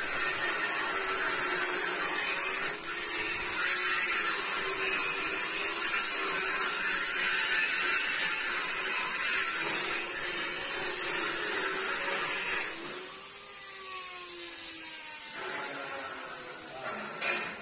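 Handheld electric power tool motor running steadily with a constant high whine, then switched off about twelve seconds in and spinning down with a falling pitch.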